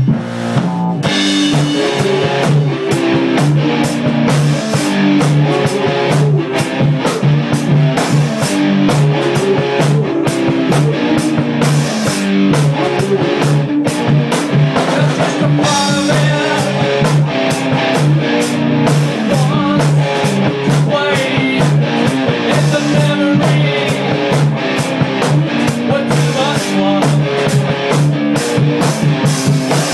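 Rock music: guitar and a drum kit playing a steady beat over sustained low bass notes.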